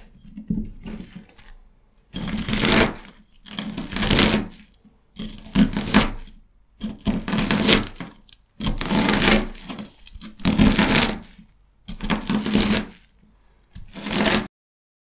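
Fresh celery being cut: a crisp crunch about every second and a half, around eight in a row, then the sound stops short near the end.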